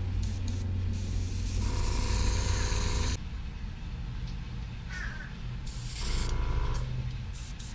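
Iwata airbrush spraying paint onto a lure blank in hissing bursts, with the air pressure turned down to about 18 psi: a few short puffs, then a long two-second spray about a second in, and another spray of about a second near the end. A steady low hum runs underneath and drops off about three seconds in.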